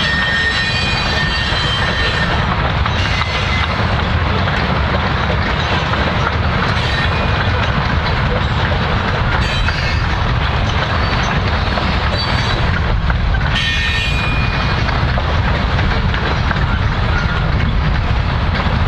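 Loaded covered hopper cars of a grain train rolling past in a steady rumble, wheels clacking over the rail joints. Brief high-pitched wheel squeals come near the start and again about two-thirds of the way through.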